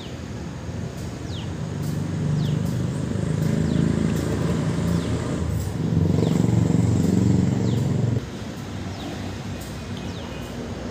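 A motor vehicle's engine running close by, a low rumble that grows louder over several seconds and then stops suddenly about eight seconds in. Thin, high falling chirps repeat faintly above it.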